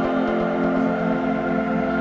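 Ambient background music with long sustained tones.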